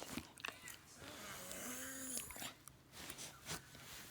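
A dog making a short breathy grumbling whine about halfway through, rising and then falling in pitch.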